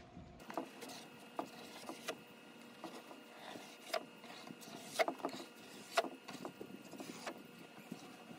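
A scraper pushing chemically softened paint off a wooden tabletop: irregular short scrapes and clicks, one every half second to a second, over a faint steady hum.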